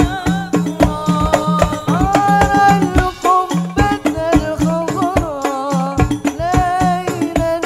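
Hadroh ensemble: men singing a sholawat melody into microphones, with held notes and sliding ornaments, over a steady beat of hand-struck frame drums and low drum strokes.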